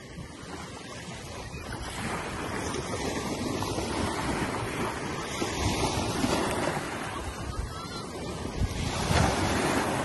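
Small waves breaking and washing up a sandy beach. The surf hiss swells from about two seconds in and is loudest near the end, as a wave breaks at the shoreline.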